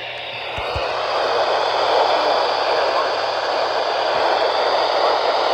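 Weather radio receiver static: a steady hiss that swells up over the first second and then holds, with two soft low bumps under a second in.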